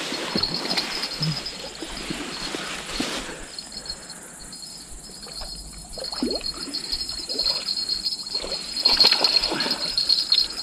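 Crickets trilling steadily in a high, even band, with louder noisy stretches near the start and again near the end.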